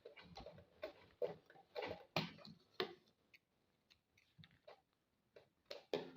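Irregular light clicks and rustles with short pauses: fabric and a zipper being handled by hand.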